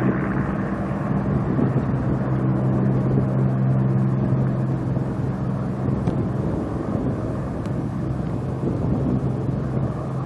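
Heinkel He 111 bomber's twin piston engines running with a steady, even drone.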